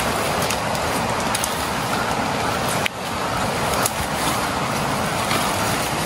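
Steady rush of a river's running water, with a brief dip about three seconds in.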